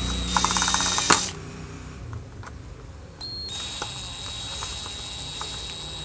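Cordless drill driving a screw into a plastic dome-camera base: the motor whines with rapid clicking and stops with a sharp click about a second in. It starts again about three seconds in and runs steadily.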